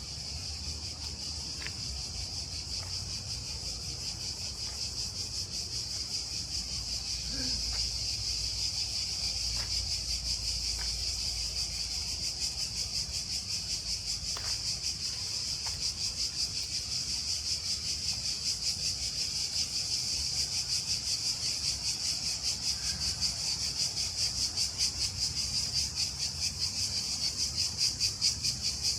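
Cicadas calling in chorus: a dense, rapidly pulsing high buzz that swells louder toward the end.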